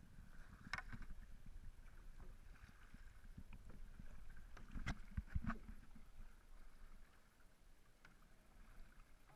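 Outrigger canoe being paddled: paddles dipping and water washing along the hull over a low rumble, with a few sharper splashes or knocks, the loudest about five seconds in.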